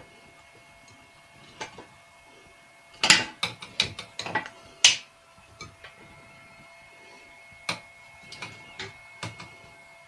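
Clicking and rattling of small hard objects being handled: a dense clatter about three to five seconds in, then a few scattered clicks, over a faint steady hum.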